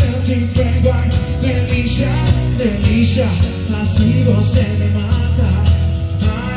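Live band music with a strong bass line and a steady beat.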